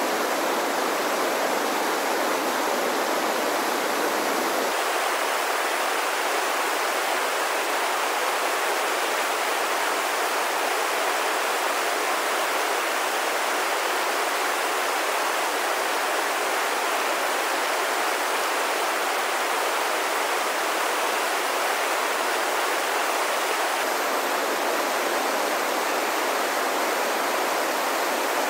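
Whitewater rushing steadily over a river standing wave, an even hiss-like rush of water with little deep rumble.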